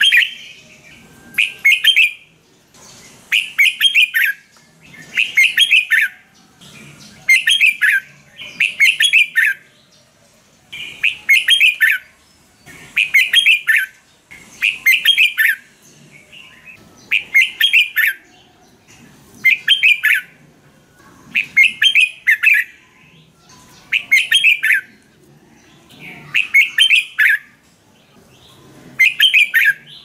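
Red-whiskered bulbul singing: short, loud warbled phrases repeated about every two seconds, with brief pauses between them.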